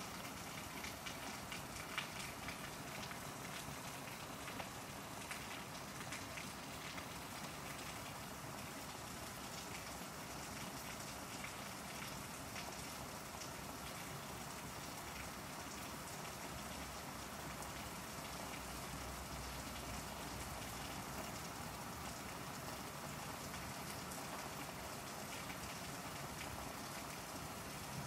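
Steady rain falling in a thunderstorm: an even hiss with small ticks of drops, most of them in the first few seconds.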